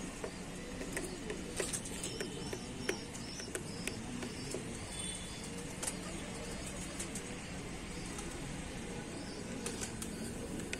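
Birds calling: small high chirps repeat every half second or so over a steady background hum, with a few sharp clicks.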